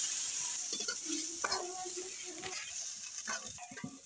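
Soybean mixture sizzling in hot oil in a steel karahi as it is poured in and stirred with a metal ladle, the ladle scraping and knocking on the pan. The sizzle is loudest at first and dies down.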